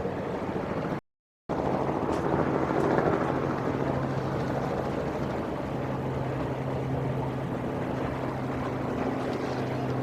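Steady engine hum: a constant low drone over a noisy wash, slightly louder about three seconds in. The sound drops out completely for half a second about a second in.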